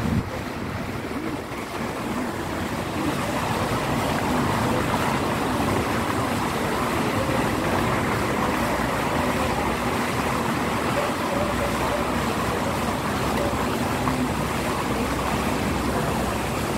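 Steady outdoor street ambience: a continuous even rumble of traffic and town noise.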